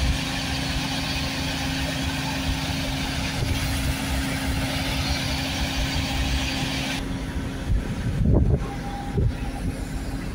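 Mobile crane diesel engines running steadily during a heavy lift, with a constant hum under a hiss. The hiss drops away about seven seconds in, and a low thump follows.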